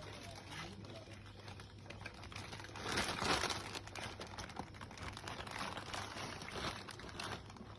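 Rustling and crinkling with many small scratchy clicks, loudest about three seconds in.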